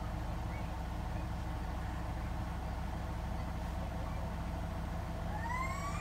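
Hotpoint WMFUG 942 washing machine running on its Cotton 60 programme with a steady low hum. A short rising whine comes in a little before the end.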